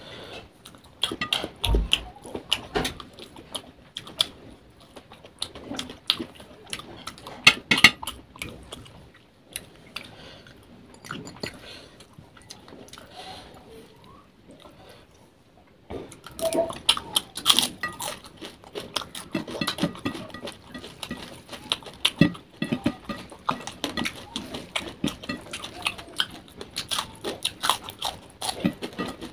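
Close-miked eating by hand: wet chewing and mouth sounds, with fingers squishing rice and fish curry against a plate. The sounds thin out for a while about midway, then come thick again.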